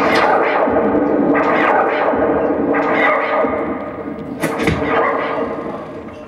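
Live experimental electronic music: sudden noisy whip-like hits with echoing tails over a steady held drone, the loudest hit about four and a half seconds in, easing off near the end.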